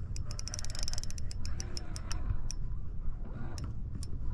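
Fishing reel clicking while a hooked fish is fought on a bent rod: a quick run of clicks about half a second to a second in, then slower, spaced clicks, over a low wind rumble.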